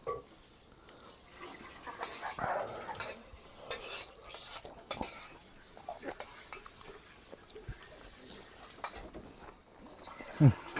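Plates and cutlery clinking and scraping, with scattered light knocks, as food is served and eaten. A brief voice sounds near the end.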